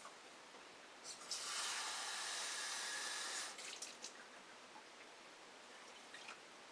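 Kitchen sink tap turned on and running for about two seconds, then shut off, followed by a few light drips and clinks.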